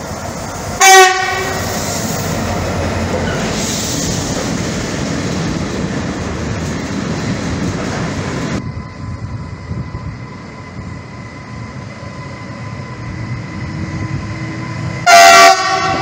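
Two short locomotive horn blasts given as a driver's greeting. The first comes about a second in, followed by the steady rumble of a freight train running past. After an abrupt change in the sound, a second short blast near the end comes from a Medway class 4700 electric locomotive hauling a freight train.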